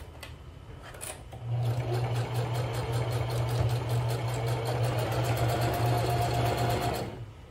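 Sewing machine stitching a seam: quiet for the first second and a half, then running steadily at an even stitch rate for about five seconds and stopping near the end.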